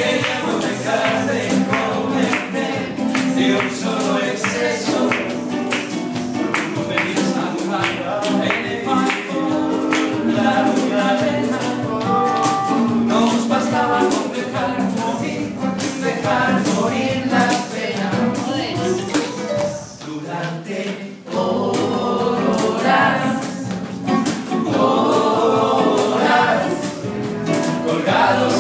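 Spanish guitar strummed with a quick, steady rhythm while two men sing along together. The music drops out briefly about two-thirds through, then picks up again.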